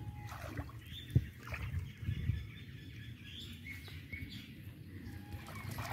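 Water sloshing around the legs of a person wading knee-deep in a pond, with a sharp splash about a second in and more sloshing around two seconds. Small birds chirp now and then throughout.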